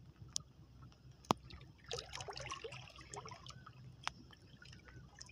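Water trickling and lapping around a small wooden outrigger canoe, busiest from about two to three and a half seconds in. Three sharp knocks on the boat cut through it, the loudest about a second in.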